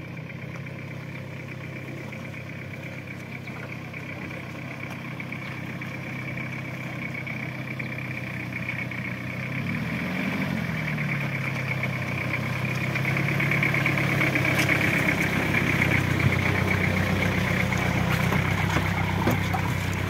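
Toyota pickup truck's engine running at low revs as the truck crawls down a steep, muddy off-road track, growing louder as it comes close. About halfway through, the engine note briefly rises and falls.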